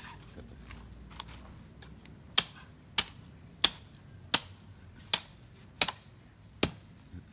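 Sharp parang (machete) chopping meat, a steady run of hard strokes about every two-thirds of a second, starting a couple of seconds in after a few lighter taps.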